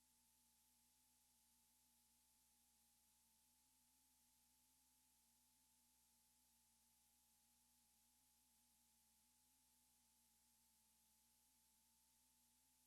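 Near silence: only a faint steady hiss with a weak hum.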